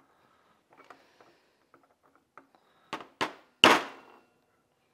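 Light hammer taps driving the splined float hinge pin into a Mercury outboard carburetor body: a few faint clicks, then three sharp taps close together about three seconds in, the third the loudest.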